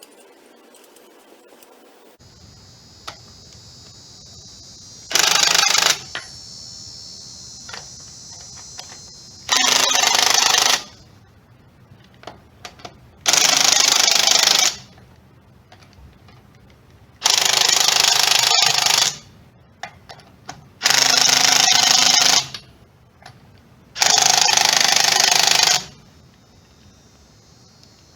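Dewalt DCF902 3/8-inch 12-volt impact wrench hammering in six short bursts of one to two seconds each, a few seconds apart.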